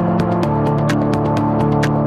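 Electronic dance music with sustained synth chords and a fast, even beat of sharp hi-hat-like ticks.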